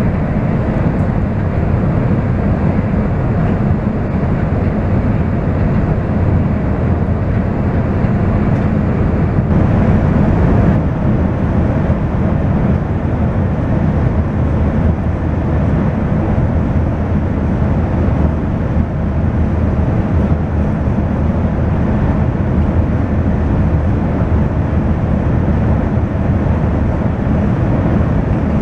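Interior running noise of a Shinkansen bullet train at speed: a steady low rumble with a rushing hiss over it. About ten seconds in, the hiss briefly turns brighter for a second or so.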